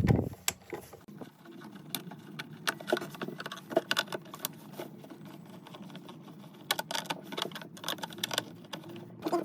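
Two screws being backed out of a plastic speaker handle with a small electric screwdriver: a steady motor whir starting about a second in and stopping near the end, with scattered clicks and knocks of tool and plastic.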